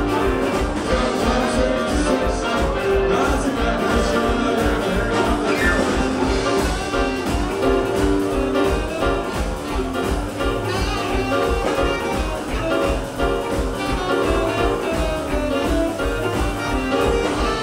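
Live small jazz-blues band playing with a swinging steady beat: electric archtop guitar, tenor and baritone saxophones, upright double bass and Hammond organ.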